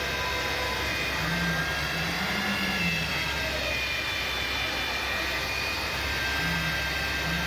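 A car running, with a steady drone and thin whining tones that drift slowly up and down in pitch. This is the gearbox whine the owner asks about, said to grow louder when the accelerator is pressed.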